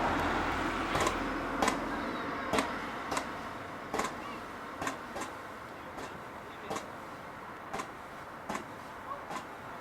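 Fireworks going off: an irregular series of sharp cracks, about one or two a second, over a hiss that fades over the first few seconds.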